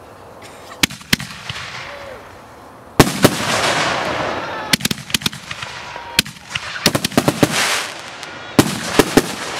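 Consumer 10-shot fireworks cake firing: a string of sharp bangs as its shots go off and burst overhead, the loudest about three seconds in, with a crackling hiss trailing after the bigger bursts.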